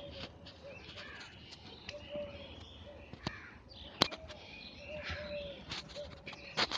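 Birds calling over and over in the background, faint. Two sharp slaps stand out, about four seconds in and again near the end, as the wrestlers' hands strike bare skin while they grapple.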